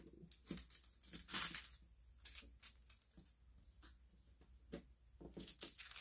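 Clear protective plastic film being peeled off an acrylic diamond-painting piece, crackling and crinkling in short bursts, loudest about a second and a half in. After that come fainter clicks and crinkles as the film is handled. The film is stuck on firmly.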